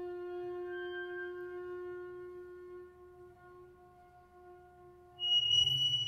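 Double bass bowed on one long, steady high note that slowly fades. About five seconds in, a louder, rougher bowed sound begins, with a piercing high whistling tone over it.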